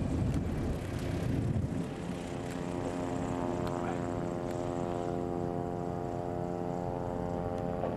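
Piper Cherokee 150's four-cylinder Lycoming engine and propeller at low power as the plane touches down. After a rough rumble over the first couple of seconds, it settles into a steady hum of even pitch.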